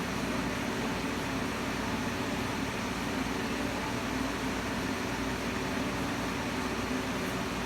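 Steady hiss with a low hum, unchanging throughout.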